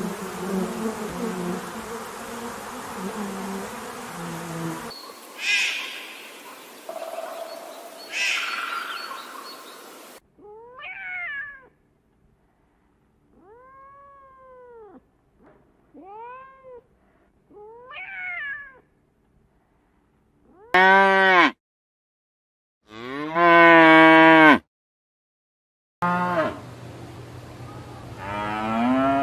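A string of separate animal calls, mostly short, arching meows from domestic cats, about six of them in the middle, then two louder, longer meow-like cries. The opening seconds hold a noisier animal sound with a low drone underneath.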